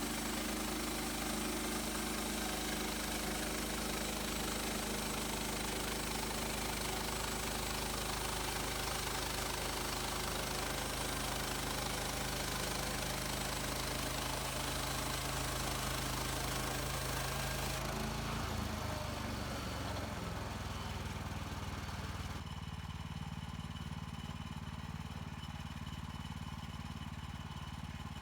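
Petrol engine of a Woodland Mills HM130 Max bandsaw sawmill running at full throttle under the cut, with a loud saw hiss over it. About two-thirds through, the engine note drops as it is throttled back. A few seconds later the high hiss stops, leaving the engine idling.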